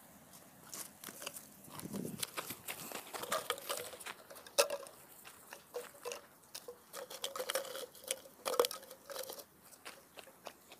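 Irregular crunching and sharp clicks of close handling noise: plastic bottles and straw being arranged by hand and feet shifting on dry, cloddy soil. Two louder clicks stand out, about four and a half and eight and a half seconds in.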